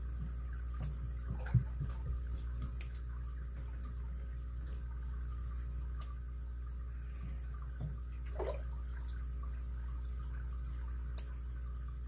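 Lock picking in an all-brass Yale seven-pin padlock: a pick scraping faintly against the pins, with a handful of sharp, widely spaced metallic clicks over a steady low hum.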